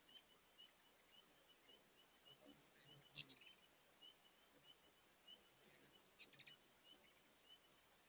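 Faint hummingbird chatter at crowded feeders: sharp high chips and twitters, the loudest cluster about three seconds in and another around six seconds. Beneath it runs a soft steady rush from the spring below, with a short high note repeating about twice a second.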